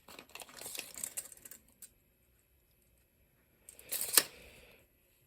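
Light handling clicks and rustles of a stag-handled slip-joint pocket knife, then a sharp click about four seconds in, like the blade snapping on its backspring.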